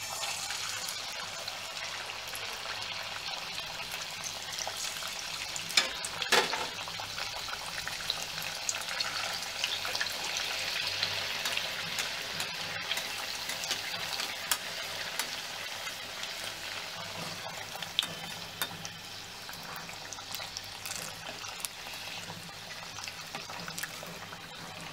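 Samosas sizzling and crackling as they deep-fry in hot oil in a steel kadhai, starting suddenly as they go into the oil. There are two louder sharp clicks about six seconds in.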